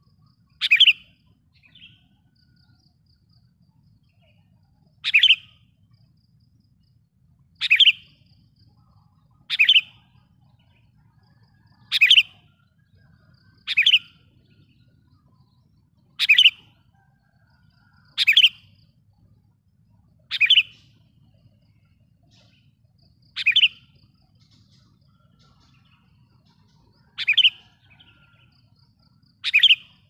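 Sooty-headed bulbul (kutilang) giving loud, sharp, short calls, about a dozen spaced two to four seconds apart. These are the lure calls that draw in and provoke wild bulbuls.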